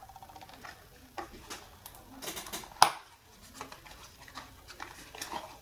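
Skincare product packaging being handled and opened: scattered rustling and light knocks, with one sharp click a little before halfway through.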